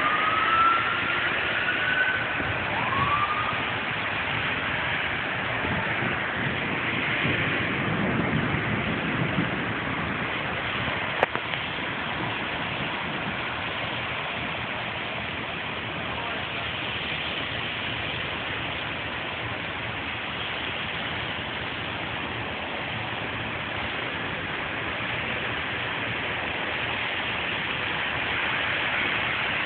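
Steady hiss of road traffic on wet pavement, with two short rising squeals in the first few seconds, a vehicle's low engine rumble swelling and fading around eight seconds in, and a single sharp click about eleven seconds in.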